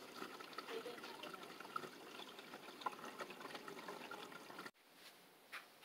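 Faint water trickling and dripping, with many small soft ticks. It cuts off abruptly near the end.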